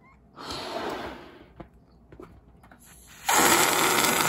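Air rushing through a balloon: a softer rush of air about half a second in, then a loud hiss of air starting suddenly near the end and lasting about a second and a half, with a brief low buzz as it stops.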